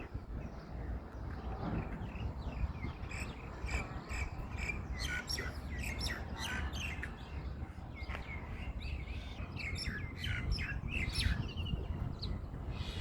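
Small birds chirping: many quick high calls in a busy run, over a steady low rumble.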